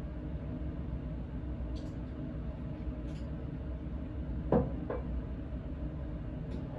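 Glass lab bottle and graduated cylinder being handled on a lab bench over a steady low room hum: a few faint clicks, then two sharp knocks of glass against the benchtop about two-thirds of the way in.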